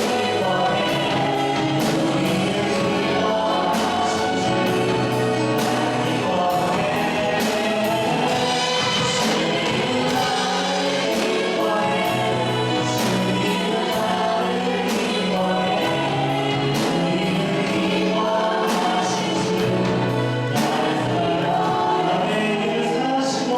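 Church praise team and congregation singing a gospel worship song in chorus, with band accompaniment and a steady drum beat.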